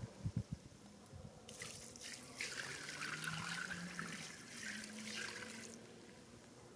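Water poured from a collapsible bucket over a carp lying on an unhooking mat, splashing for about four seconds from a second and a half in, then trailing off. A few soft knocks right at the start as the bucket is taken up.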